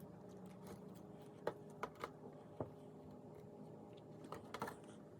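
Faint, scattered sticky clicks and small pops of slime being handled and stretched, about half a dozen in all, over a low room hum.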